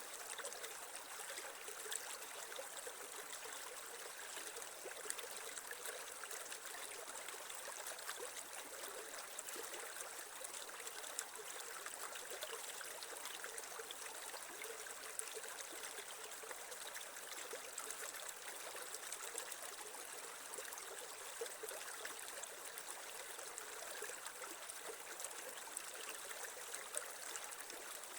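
A shallow creek flowing steadily, its water trickling and splashing over stones with many small bright plinks.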